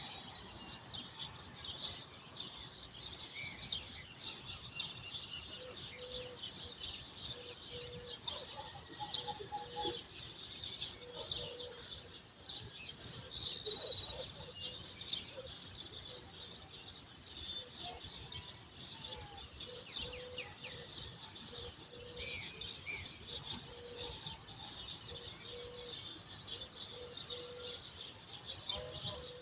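Dawn chorus of many small birds chirping and twittering without pause, with a lower call note repeated about once a second through much of it.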